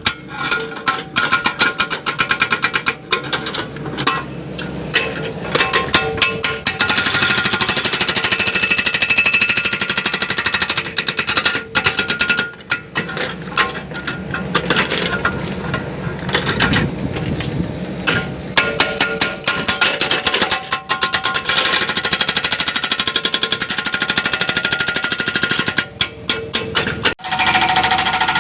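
Excavator-mounted hydraulic breaker hammering a large rock, a fast, steady run of blows that stops briefly a few times.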